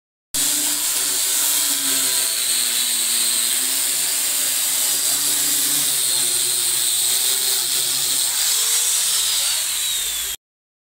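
Handheld electric sander running steadily while pressed against the wooden panels of an acacia wood cabinet, sanding the surface. It starts and cuts off abruptly.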